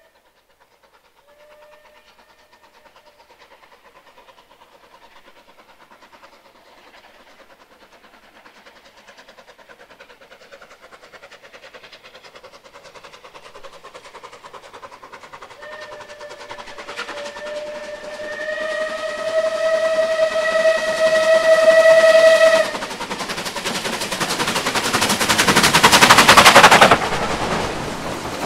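Steam locomotive approaching, its exhaust growing louder, with a brief whistle toot near the start and a long steady whistle blast about two-thirds of the way through. It then passes close beneath with its loudest exhaust, which drops away suddenly, leaving the carriages rumbling past.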